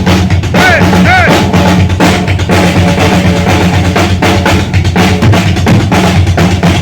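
Heavy metal drum solo on a full drum kit: fast, dense bass-drum strokes under snare hits and rim shots, played loud.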